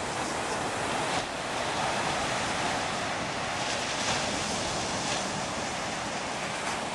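Low ocean surf breaking and washing on the beach as a steady wash of noise, with wind rumbling on the microphone.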